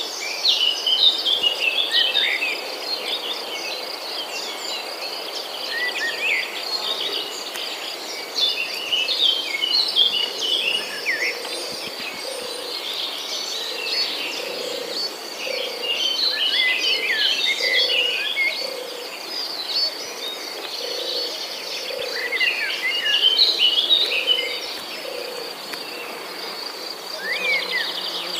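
Insects trilling steadily at a high pitch, with many birds chirping and whistling over it. Through the second half, a lower call repeats about once a second.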